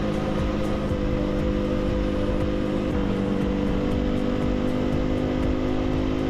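Aprilia Tuono 125's single-cylinder four-stroke engine running at a fairly steady cruise, its pitch shifting slightly about three seconds in, over a low wind rumble.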